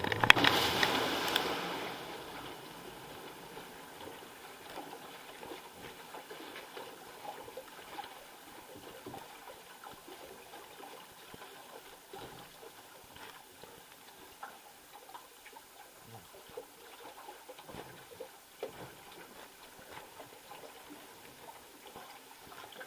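Water rushing and splashing around a flume-ride boat for about the first two seconds, fading out. Then the boat drifts along the water channel with faint trickling water and scattered small knocks and ticks.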